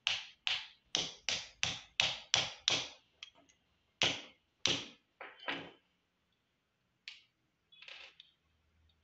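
A knife tapping and chipping at the glass neck around a CRT television's electron gun: a quick run of sharp taps, about three a second, then a few more spaced out, fading to a couple of faint ones near the end.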